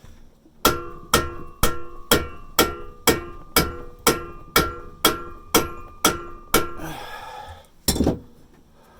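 Hammer blows on steel, thirteen in a steady rhythm of about two a second, each with a metallic ring, driving a tool into a rusted exhaust pipe joint to split the stuck pipe out of a muffler inlet. A short rasping noise follows, then one last blow near the end.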